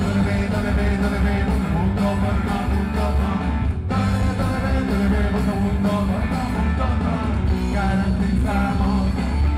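Live rock band playing loud through a PA, with drums, bass and sung vocals, heard from within the audience.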